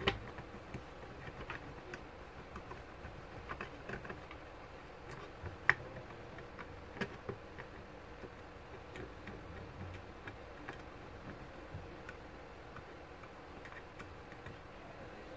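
Light, irregular clicks and scratches of fingers and a tissue handling a laptop motherboard while old thermal paste is cleaned off the CPU, with sharper ticks just after the start and about six and seven seconds in.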